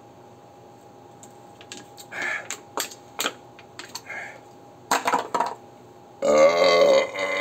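A man belches long and loud about six seconds in, after draining a can of beer. Before it come a few breaths and light clicks of the metal can as it is lowered.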